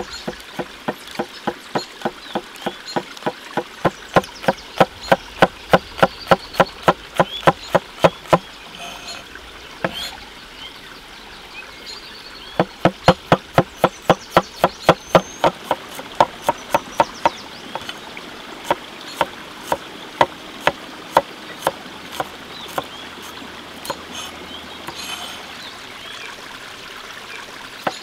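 Heavy crescent-bladed chopping knife chopping chili peppers and garlic on a wooden cutting board. The sharp chops come in quick runs of about three to four a second, pause for a few seconds partway through, then come more slowly and spaced out near the end. A stream trickles in the background.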